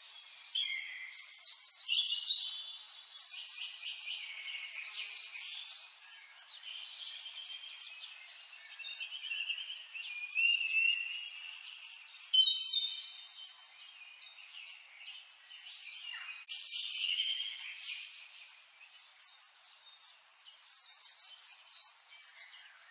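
Songbirds singing, several overlapping chirps and trills, dying away near the end.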